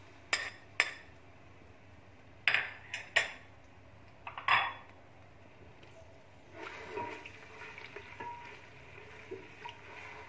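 A spoon knocks and scrapes ginger-garlic paste off a plate into a pressure cooker, giving several sharp clicks in the first few seconds. From about six and a half seconds in, the paste sizzles in hot oil as a spatula stirs it.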